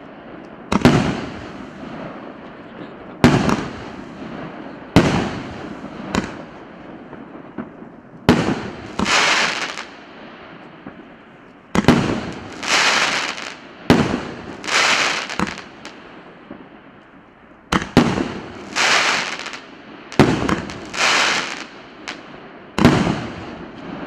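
P8710 consumer firework battery (multi-shot cake) firing shot after shot, a sharp bang every one to two seconds. Many shots trail off in about a second of crackling hiss.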